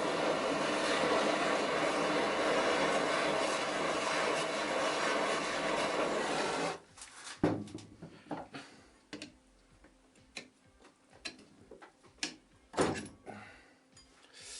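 Gas torch hissing steadily as it heats the glued lower bearing seat of a vacuum cleaner motor; it shuts off suddenly about seven seconds in. Then come scattered knocks and clinks of metal motor parts being handled.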